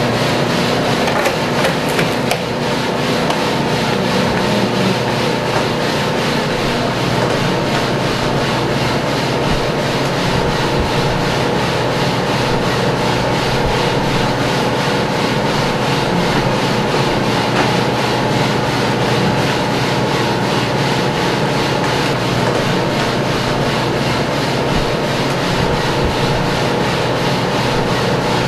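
Drum coffee roaster running, with roasted beans being swept around its cooling tray by the turning stirring arms: a steady rasping, scraping noise over a constant machine hum.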